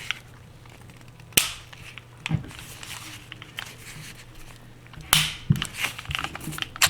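Metal clicks and light scraping of a Tisas 1911 pistol's steel parts as the slide stop is pushed into the frame during reassembly. There are a few separate sharp clicks, the loudest about five seconds in.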